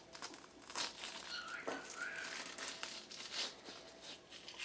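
Catfish skin being pulled off the body with pliers, tearing away from the flesh in a run of irregular crackles and rasps.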